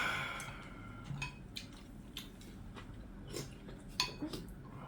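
A person eating a hot meal: a drawn-out, satisfied 'ha' exhale at the start that trails off, then scattered clicks of utensils against a bowl and chewing.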